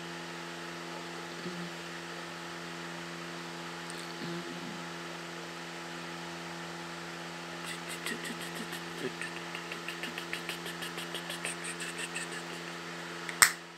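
A steady mechanical hum throughout. Over the second half, a makeup brush sweeps quickly back and forth across the cheek at about four strokes a second, and a single sharp click comes near the end.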